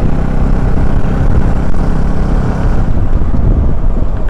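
A motorcycle's engine running while it is ridden, with heavy wind rumble on the microphone.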